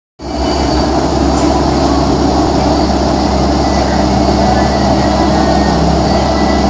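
A handheld electric repair tool's motor running steadily with an even whirr and a low hum, starting right after a cut.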